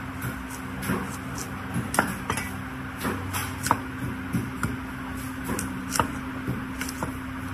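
A cleaver chopping and shaving the husk off a young coconut on a wooden chopping block: about ten sharp, irregular strikes, the hardest about two seconds in and near six seconds. A steady low hum runs underneath.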